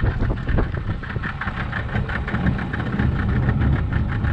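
A small fishing boat's motor running steadily.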